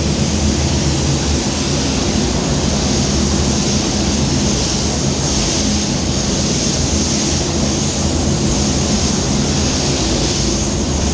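Paint spray gun hissing steadily as it lays the final even coat of Cromax Pro waterborne basecoat, held farther from the panel to even out the colour. A steady low hum runs underneath.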